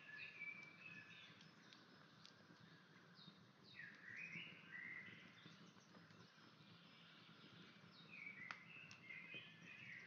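Faint birdsong: short chirping phrases with quick up-and-down pitch steps, coming every few seconds over a soft background hiss. Two sharp clicks, about two seconds in and again near the end.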